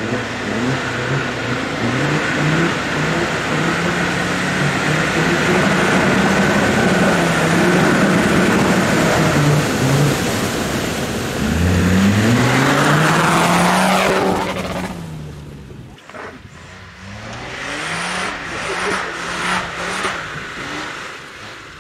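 Land Rover Discovery TD5's five-cylinder turbodiesel working hard under load while crawling off-road, its pitch shifting up and down, then revving up sharply about twelve seconds in. A couple of seconds later the engine drops away, and a quieter, uneven stretch follows with a few knocks.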